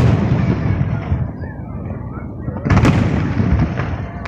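Aerial firework shells bursting at close range: a sharp bang right at the start that rumbles off over a second or so, then a quick cluster of bangs near three seconds in, also echoing away.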